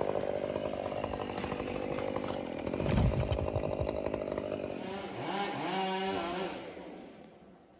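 Chainsaw running while cutting wood, with a heavy low thump about three seconds in. Later the engine revs up and back down a few times before the sound fades away near the end.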